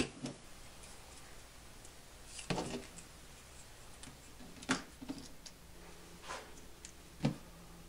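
A hobby knife cutting heat-shrink tubing against a work board, heard as scattered light clicks and taps as the blade goes through and the small pieces and tools are handled. The sharpest taps come near the middle and near the end.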